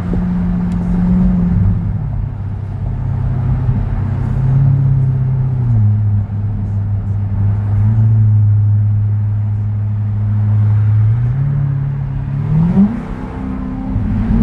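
Ferrari engine and exhaust heard while driving. The engine note drops to a lower steady drone about two seconds in, holds there, then climbs again as the car accelerates near the end.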